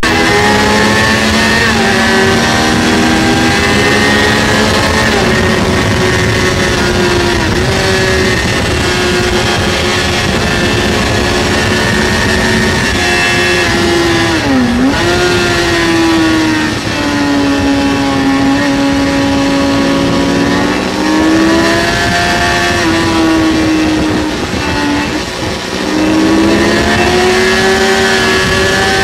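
Kawasaki ZX-6R's inline-four engine running hard on track, heard onboard with wind rush, its pitch rising and falling with throttle and gear changes. The note dips sharply and recovers about fifteen seconds in, and eases off briefly near twenty-five seconds before climbing again.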